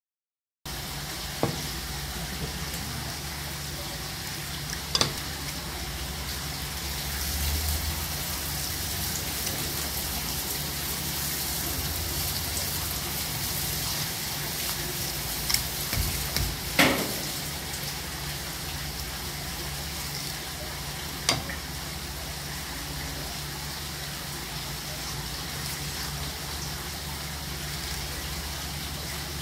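Flounder being filleted with a gyuto kitchen knife on a wet wooden cutting board: a handful of short, sharp knocks and taps of knife and fish against the board, the loudest just past halfway, over a steady hiss and low hum.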